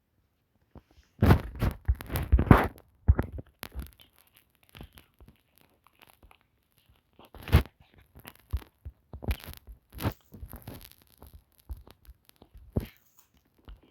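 Irregular crackling and clicking close to the microphone, densest for a couple of seconds about a second in, then scattered clicks.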